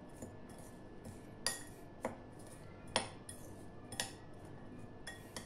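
A spoon stirring grated coconut filling in a glass bowl, clinking against the glass about four times, roughly once a second, with fainter scraping between.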